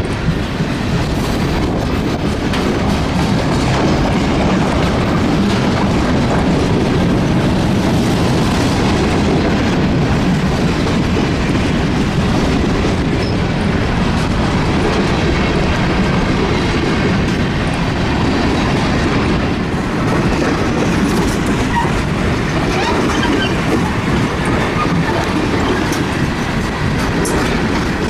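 Mixed freight cars of a long freight train rolling past close by: steel wheels on the rails making a steady, loud rumble and clatter.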